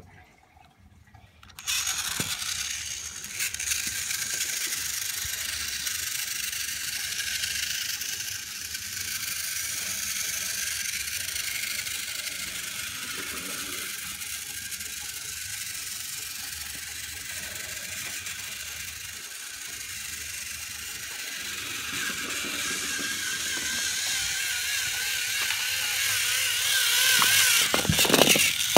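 Battery-powered Thomas motorized toy trains running on plastic track: a steady high whirring of small gear motors and wheels that starts suddenly about two seconds in and grows louder near the end.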